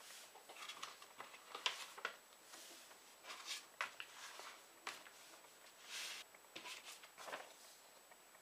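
A sheet of paper rustling and crackling as hands fold it and run along its creases to make a paper airplane, in short scattered crinkles and swishes.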